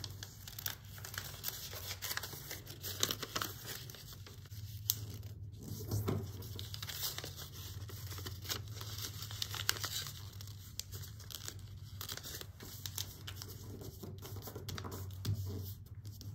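Origami paper rustling and crinkling in the hands as its flaps are folded, tucked into the pocket of a corner bookmark and creased flat, with a stream of irregular small crackles.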